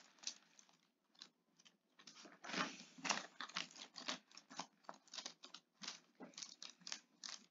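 Faint rustling and crinkling of thin Bible pages being leafed through. It starts about two and a half seconds in as a run of quick, irregular crackles.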